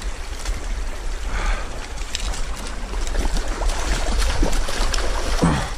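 A hooked trout thrashing and splashing at the surface of a shallow stream as it is played toward a landing net, the splashing busiest in the second half. A steady low rumble runs underneath.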